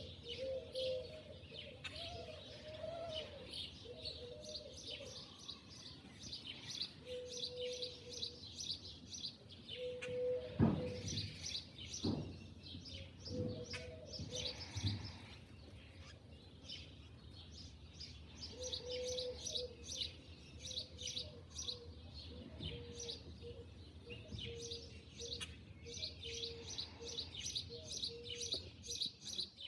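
Many small birds chirping rapidly and continuously, with a low steady note coming and going underneath. A couple of short thumps sound about ten and twelve seconds in.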